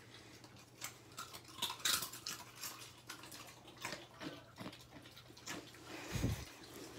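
A dog chewing potato chips, with many irregular crisp crunches. A dull low thump comes about six seconds in.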